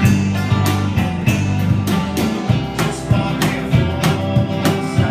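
A small live band playing a song: electric guitar and electric bass over a cajon beat with cymbal hits, with a man singing.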